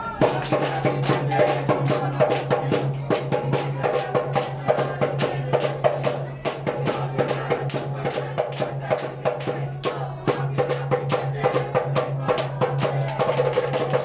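Fast rhythmic percussion, about four or five sharp beats a second, keeping an even pulse over music and voices.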